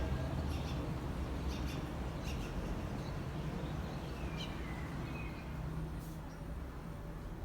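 A few short, high bird chirps, some falling in pitch, over a steady low background rumble.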